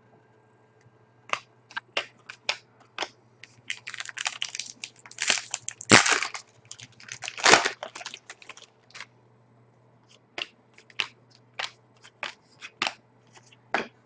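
Trading-card packs being handled and opened: crinkling pack wrappers and cards being flicked through make a run of sharp clicks and crackles. The sounds are thickest in the middle and thin out to single clicks near the end.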